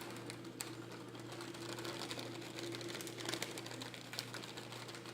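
Faint steady hum with scattered light clicks and rustles of kitchen handling.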